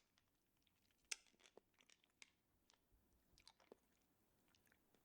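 Near silence broken by faint, scattered clicks and mouth noises of a hard menthol cough drop being sucked and moved around against the teeth, the sharpest click about a second in.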